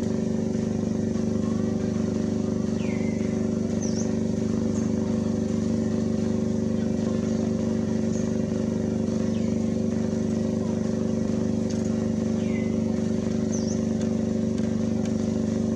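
Steady low mechanical drone, like an engine running at constant speed, with a few faint short high chirps over it.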